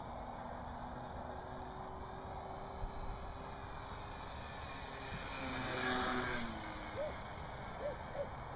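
Electric motor and propeller of a ParkZone Stinson Reliant RC plane droning overhead, swelling loudest as it passes closest about six seconds in. Wind rumbles on the microphone throughout.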